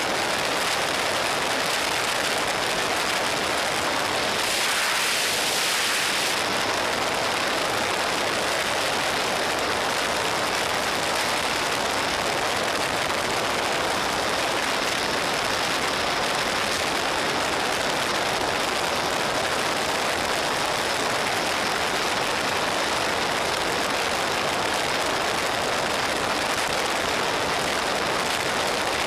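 Steady wind rush over the camera microphone of a Suzuki SV650 at freeway speed, an even noise with no clear engine note, growing a little brighter for a couple of seconds about five seconds in.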